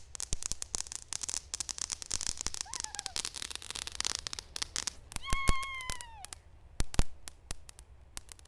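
Ground fountain firework spraying sparks: a hiss with rapid crackling pops, thinning to scattered pops over the second half. A short high falling cry comes about 3 seconds in, and a longer, louder one about 5 seconds in.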